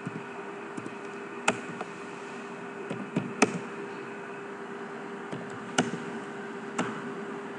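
A few separate clicks of a computer keyboard and mouse, three of them close together in the middle, over a steady low hum.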